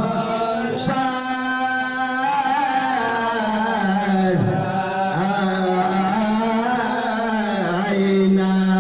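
A group of men chanting marhaban, Islamic devotional praise verses, together on one melody line, with long held notes.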